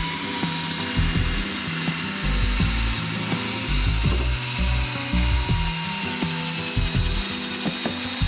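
Power tool working a dryer vent cleaning brush through the duct: a continuous whir with rattling, ratchet-like clicks and knocks throughout.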